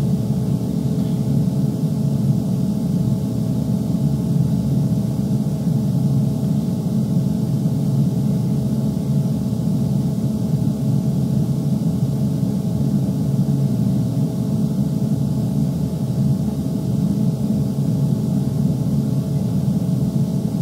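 A steady, even hum with several fixed low tones that never changes in level or pitch.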